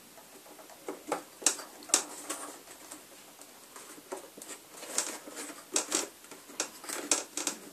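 Irregular plastic clicks and taps as a keyboard's key contact circuit board is pressed and clipped back into place over its rubber contact strips. The sharpest clicks come one to two seconds in, with more clusters near the end.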